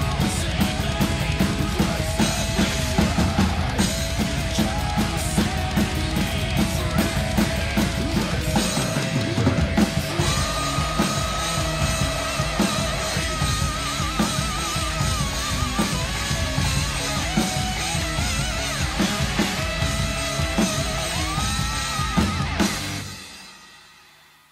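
Tama drum kit with Sabian cymbals played along to a heavy rock recording with guitars: rapid kick-drum strokes under cymbal crashes, and a held melody line with vibrato from about ten seconds in. The song ends on a final cymbal hit about 23 seconds in and rings out.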